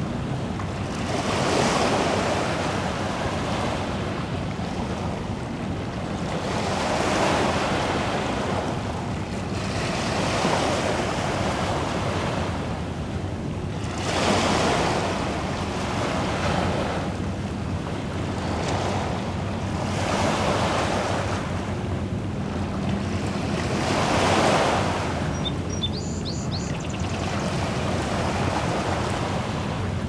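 Waves washing onto a rocky shore, a rushing that swells and fades every few seconds, with some wind on the microphone. A few brief high chirps near the end.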